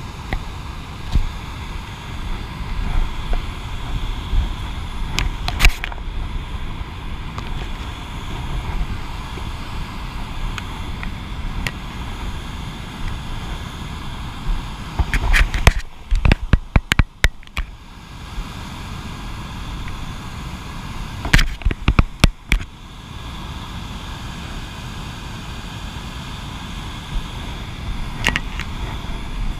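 Whitewater rapids of a mountain river rushing steadily. Over it come low rumble and sharp knocks on the microphone from the hand-held camera grip, in tight clusters about halfway through and again a few seconds later.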